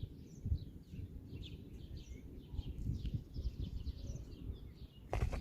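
Small songbirds chirping and twittering, many short high calls overlapping, over a low rumble; a short knock near the end.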